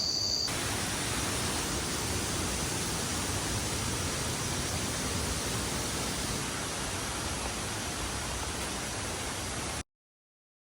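Steady rush of falling water from a waterfall, an even hiss across all pitches that starts abruptly about half a second in and cuts off suddenly near the end.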